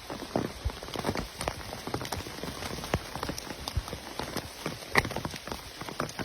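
Rain falling, heard as a steady hiss with many irregular drop taps, one louder tap a little before five seconds in.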